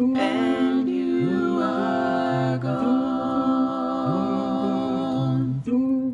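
Wordless a cappella singing: several voices holding sustained chords, over a low bass part that slides up and holds, repeating about every three seconds.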